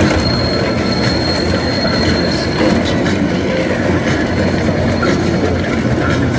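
Train cars rolling along the track with a steady rumble, and a thin high wheel squeal through roughly the first half.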